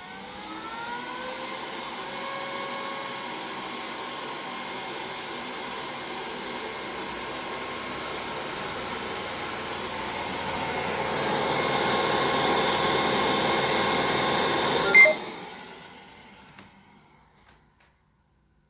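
Neato D85 robot vacuum's motors running: a steady whir that grows louder about ten seconds in, then a short sharp sound and the motors winding down to a stop. It is the robot's failed attempt to start cleaning, which the owner says ends in error 3000.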